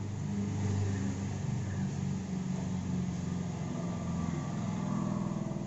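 An engine running steadily with a low hum that wavers slightly in pitch.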